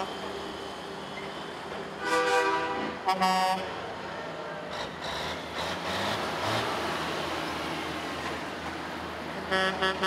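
Semi-truck air horns blasting over the steady noise of passing truck engines: one long blast about two seconds in, a shorter one right after, then a quick series of short toots near the end.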